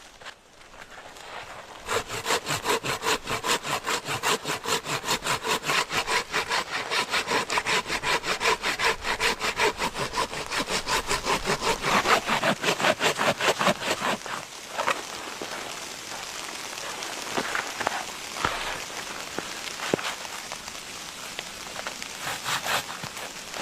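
Hand saw cutting through wood in quick, even strokes, about four a second, stopping about two-thirds of the way through. Scattered knocks and cracks of wood follow.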